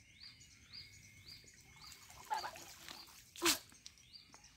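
A bird repeating a short, high, rising chirp about twice a second, with a single loud, sharp sound about three and a half seconds in.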